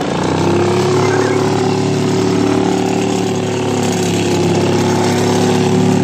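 Snow blower running steadily, throwing snow.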